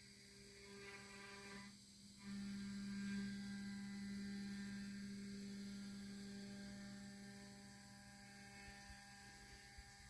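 A low, steady hum that swells sharply about two seconds in, then slowly fades.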